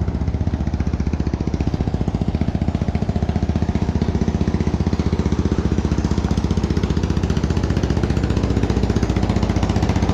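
CFMOTO CFORCE 600 ATV's single-cylinder engine idling steadily, with an even, rapid pulse.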